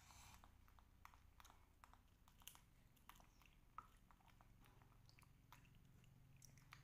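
Near silence with faint, scattered small clicks and crunches: vitamin C candy being chewed and small plastic candy tubes handled.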